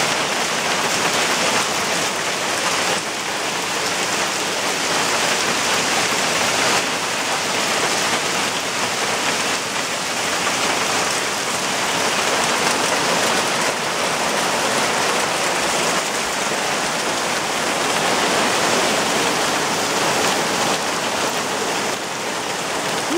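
Hailstorm: hailstones and rain pelting down in a dense, steady clatter with no let-up.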